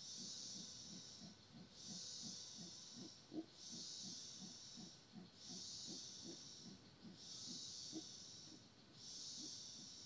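Faint rainforest insects calling: a high buzzing call about a second long repeats roughly every two seconds, over a faster, lower pulsing of about three beats a second.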